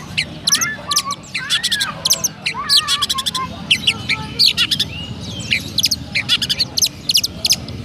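Oriental magpie-robin singing a fast, continuous run of sharp high chirps mixed with short whistled glides, in a sparrow-like chirping style that mimics the Eurasian tree sparrow.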